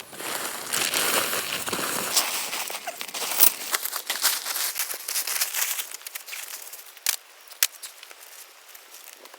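Tent fabric rustling and crinkling as a tent is unpacked and pitched. The sound is dense for the first few seconds, then turns sparser, with two sharp clicks about seven seconds in.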